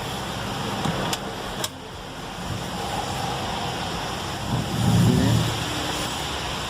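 Fiat Freemont running in place, a steady even noise, with two light sharp clicks a little after a second in and a short low rumble swelling up and fading near the five-second mark.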